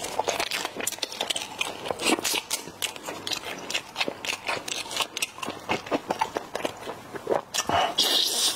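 Small plastic-and-foil snack packets of latiao (spicy gluten strips) crinkling and being torn open in the hands, as a run of irregular sharp crackles. A bite and chewing come near the end.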